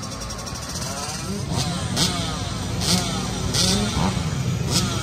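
Many dirt bike engines idling and being revved at once, their pitches rising and falling over one another, with sharp blips of throttle every second or so.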